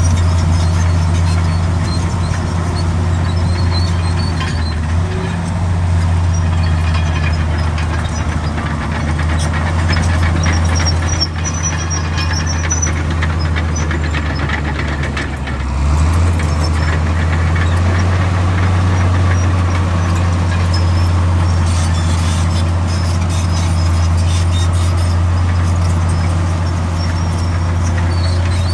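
Komatsu D65 bulldozer's diesel engine running steadily at a low hum, with intermittent high squeals. The engine note sags about fifteen seconds in and picks up again a second later.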